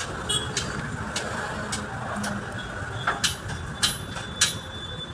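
Sharp metallic clinks and taps of tools and steel parts during truck gearbox assembly, about eight short strikes that ring briefly, the loudest in the second half. Under them runs a steady low background rumble.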